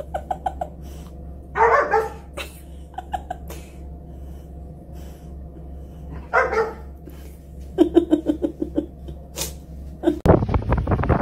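A dog vocalizing in short bouts, several times, over a low steady hum. Near the end, wind buffets the microphone.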